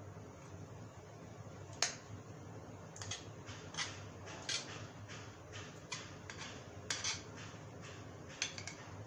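About a dozen light, irregular clicks and taps of a utensil against cookware as cake batter is poured into a square metal cake tin and spread with a wooden stick, over a low steady hum.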